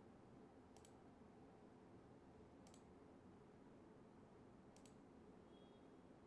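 Near silence: faint room hum with three faint, sharp double clicks about two seconds apart.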